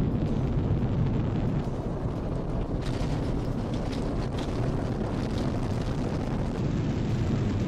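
Space shuttle Columbia's solid rocket boosters and main engines in the first seconds after liftoff: a deep, steady rumble of rocket exhaust with no break or distinct event.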